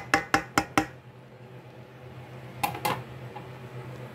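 Dishware knocking quickly against a steel cooking pot, about five sharp knocks a second for the first second, as sliced hotdogs are tipped off a plate into the stew. Two more knocks come near three seconds in, over a steady low hum.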